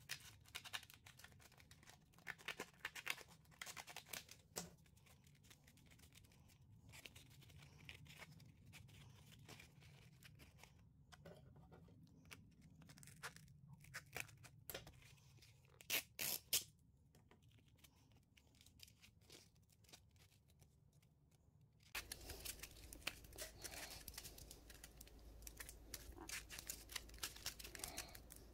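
Faint snips of scissors cutting through sandpaper, with scratchy rustling of the gritty sheet as it is handled; two sharper snips about halfway through are the loudest. Near the end a low steady hum comes in under light handling sounds.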